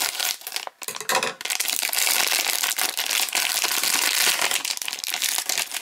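Plastic surprise bag crinkling and rustling as it is opened and handled, in short bursts at first, then nearly continuous from about a second in.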